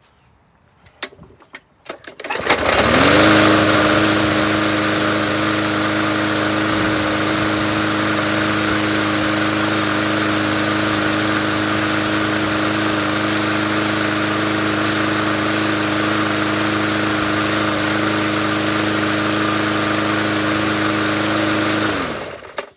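Small overhead-valve push-mower engine starting after a few rattling knocks, then running steadily at one speed. It is shut off near the end and winds down.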